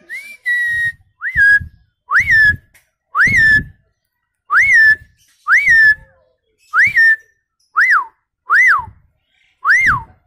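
A man imitating a birdcall by mouth-whistling, without any tool. About ten separate whistled notes come roughly one a second. Each sweeps up and then falls, the later ones dropping more steeply.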